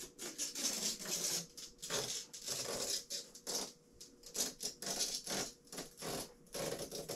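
Protective plastic film being peeled off a lightsaber blade: a crinkling, crackling rustle in irregular spurts.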